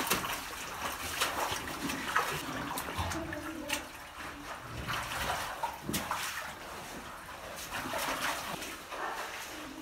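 Splashing steps of people wading through a shallow underground cave stream, over the water running around them.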